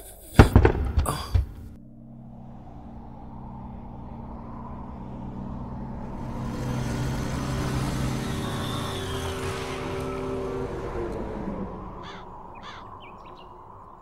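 A rock dropped onto loose stones, knocking and clattering for about a second. Then a small motorcycle engine runs steadily, getting louder as the bike draws close and dying away after about eleven seconds, with a few short high calls near the end.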